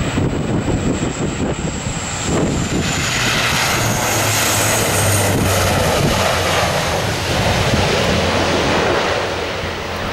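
Bombardier Dash 8 Q400 turboprop engines running at high power with their propellers droning as the airliner passes low along the runway and climbs away without landing. The drone grows loudest around the middle, with a high turbine whine that dips and then rises in pitch. Gusty wind buffets the microphone.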